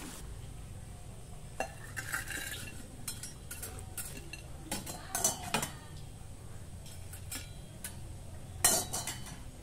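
Stainless steel slotted spoon clinking and scraping against a wok and a plate as fried fritters are lifted out and set down: scattered clinks and knocks, the loudest just before the end.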